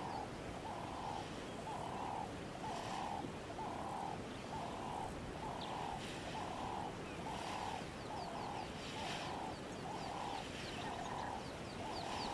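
An animal call repeated very regularly, a short mid-pitched note a little under twice a second, with faint high chirps over it in the second half.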